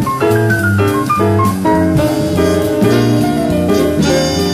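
Jazz band playing, with a drum kit keeping time under moving melody and chord notes and a bass line.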